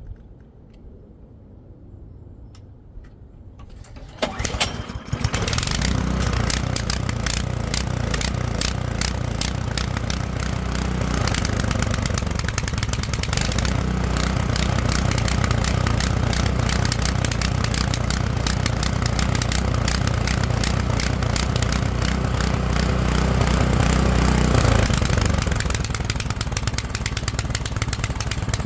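Toro Power Clear 721 E snowblower's small single-cylinder four-stroke engine starting about four seconds in and then running steadily. It starts readily on fresh gas after its carburetor, gummed by old fuel, has been cleaned.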